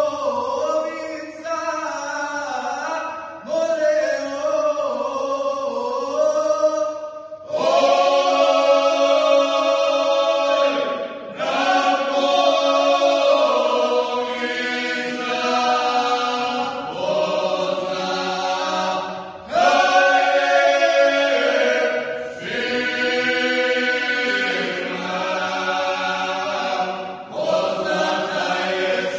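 Men's folk singing group singing together unaccompanied, several voices holding long drawn-out phrases with short pauses for breath between them.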